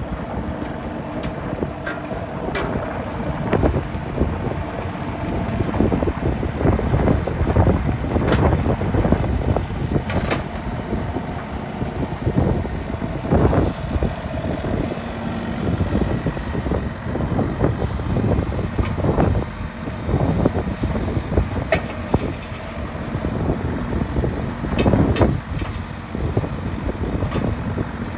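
Kubota U35-4 mini excavator's diesel engine running while the machine turns and moves on its tracks, its level rising and falling, with repeated knocks and rattles from the machine.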